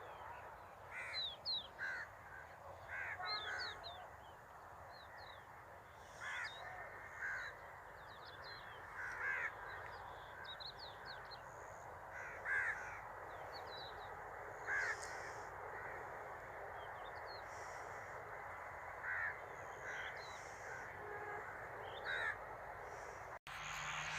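Crows cawing again and again in short calls over a steady background hiss, with faint higher bird chirps among them. The calls stop a couple of seconds before the end.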